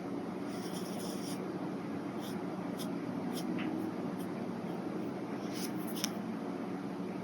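Brush pen strokes on paper: one longer stroke near the start, then several short quick flicks through the rest, over a steady low background hum.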